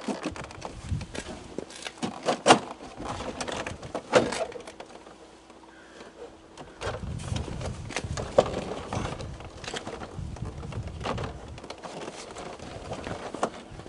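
Truck's plastic inner door trim panel being lifted off its clips and handled: irregular plastic clicks, knocks and rattles, with some rustling and scraping in the middle.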